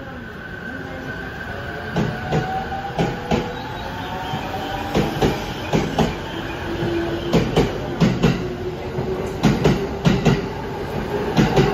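JR East E231 series electric multiple unit pulling away and gathering speed: the traction motors' inverter whine rises slowly in pitch over a steady rumble. The wheels clack over rail joints in pairs, the clacks coming more often as it accelerates.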